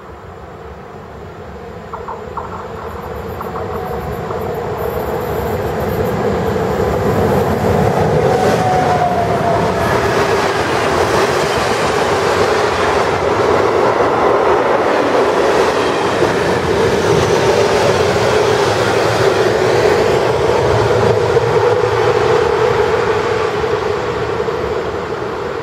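A freight train of covered wagons approaching and running past close by, its wheels clattering on the rails. It grows louder over the first few seconds, then holds steady as the wagons roll by.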